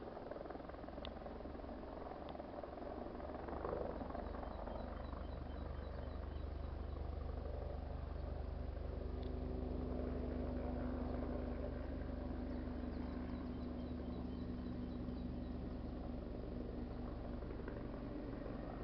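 Distant propeller aircraft droning, a steady low engine hum that swells about halfway through.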